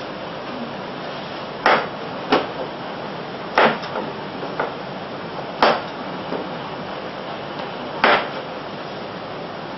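Chef's knife slicing carrots and striking a plastic cutting board: a handful of sharp, irregularly spaced knocks over a steady background hiss.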